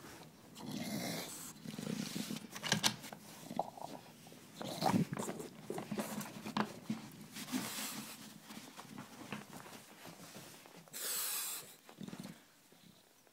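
English bulldog growling in irregular, rough bursts, a bubbling growl that sounds like someone hitting a bong.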